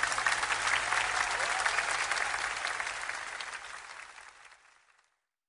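Concert audience applauding after the song ends, a dense steady clapping that fades away to silence about five seconds in.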